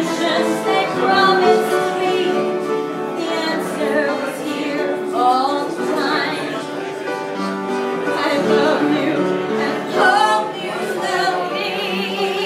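A woman singing into a microphone, in long held phrases.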